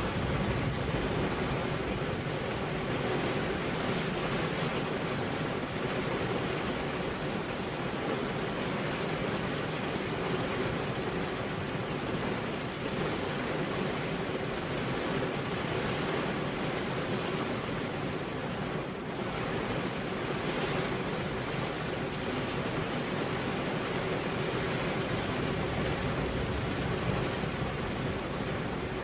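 Heavy rain falling steadily on a road: a dense, even hiss with no thunder.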